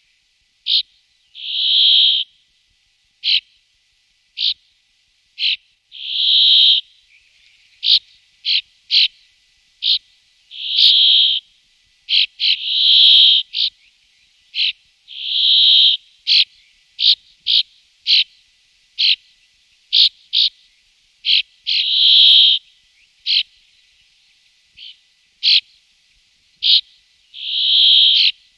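Bramblings calling: a long, buzzy, wheezing note of nearly a second repeated every few seconds, among many short, sharp call notes.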